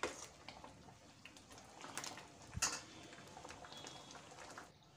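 Steel ladle stirring thick dal in a stainless steel pan: a few faint scrapes and clinks of the ladle against the pan, the sharpest knock a little past halfway.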